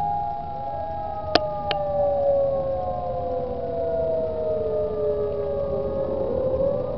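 Several outdoor warning sirens, Whelen 3016 and Federal Signal models among them, wailing together across the valley during a lahar warning system test. Their overlapping tones, each at its own pitch, slowly fall and then start rising near the end. Two sharp clicks come close together about a second and a half in.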